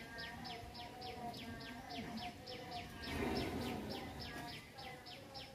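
Rapid high chirping repeated evenly about five times a second from a small animal, with a brief louder rush of noise a little past halfway.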